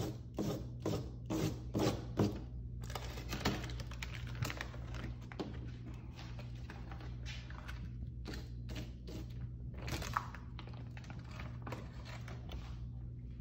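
A magazine page being pressed and patted down by hand onto a spray-painted surface and then peeled off: a quick run of soft thuds and taps in the first couple of seconds, then scattered paper rustling and crinkling until near the end. A steady low hum runs underneath.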